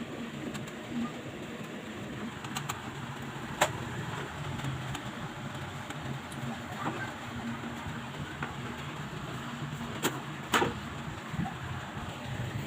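A few sharp clicks and knocks of computer parts being handled and fitted during PC assembly: one about three and a half seconds in and two close together near the end, over a steady low background hum.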